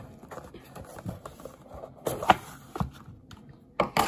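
Cardboard box lid being slid off a model kit box: rubbing, scraping handling sounds with a few sharper knocks, the loudest about halfway through and another near the end.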